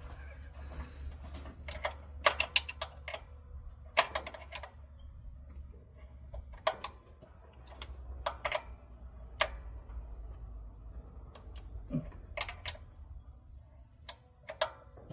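Irregular sharp metallic clicks and clinks of a wrench and hand tools working the fasteners of a Chevy throttle body injection unit, some in quick pairs, over a low steady hum.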